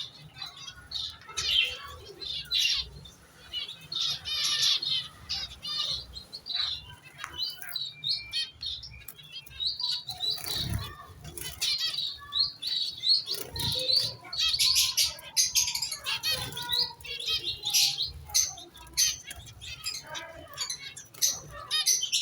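A mixed flock of small cage birds chirping and twittering continuously, with wings fluttering now and then.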